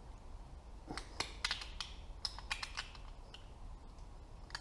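Light metallic clicks and taps, a few a second and bunched in the middle, as a Honda CBX connecting rod and its bearing cap are worked apart by hand.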